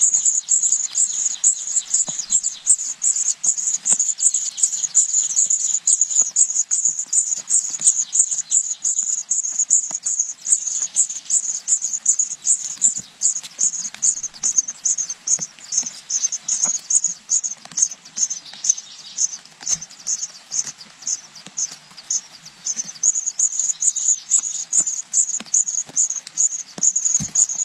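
Nestling birds begging: a continuous, high-pitched, rapidly pulsing chirping that keeps up without a break.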